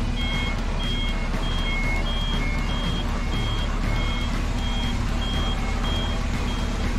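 Truck reversing alarm beeping in short, evenly repeated high beeps at two pitches, a few a second, over the steady low rumble of the truck's engine.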